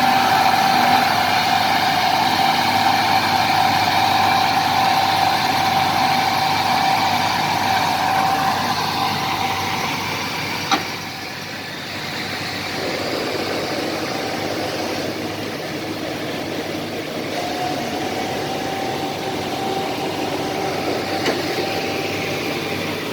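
Heavy diesel machinery working hard on sand: engine running under load with a steady high whine. About halfway through, a sharp click comes and the engine note drops and changes, then the whine returns.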